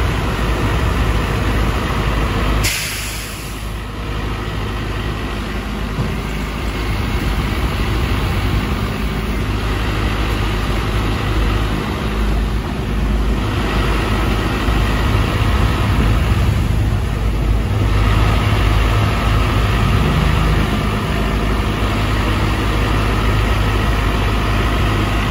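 Tymco 500x regenerative-air street sweeper running steadily with its hopper being lowered on its scissor lift. A short, sharp hiss of air comes about three seconds in.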